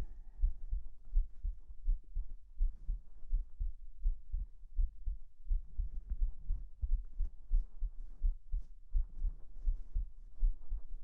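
A human heartbeat heard close up, as if with an ear against the chest: a steady rhythm of deep lub-dub thumps.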